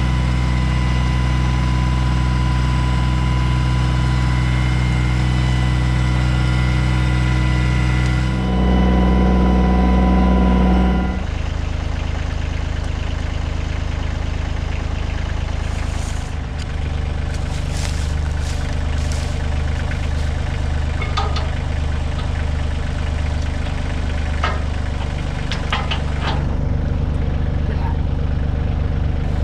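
Kioti CK2610 compact tractor's diesel engine running steadily. About eight seconds in it gets louder with an added hum for about three seconds, then settles back into a steady run, with scattered light clicks and knocks over it.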